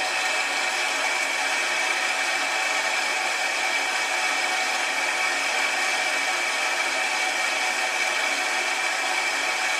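Boiler automatic water feeder valve open, water rushing through it to refill the boiler after a low-water cutoff: a steady hiss with a faint high whine.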